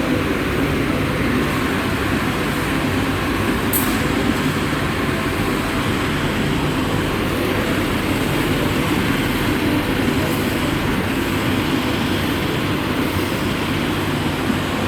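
Steady, loud running noise of industrial recycling-line machinery, with one brief sharp click about four seconds in.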